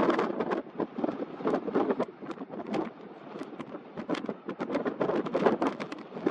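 Wind buffeting the microphone in uneven gusts, the level swelling and dropping with short crackles of wind blast.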